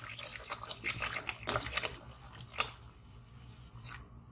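Milk pouring into boiling water and ghee in an aluminium pressure cooker, with a dense crackle of small pops and bubbling clicks over the first two and a half seconds, then quieter with a couple of single ticks.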